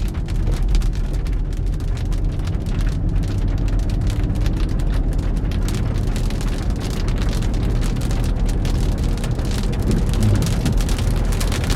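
Rain pelting a car, a dense patter of drops throughout, over the steady low rumble of the car and the road.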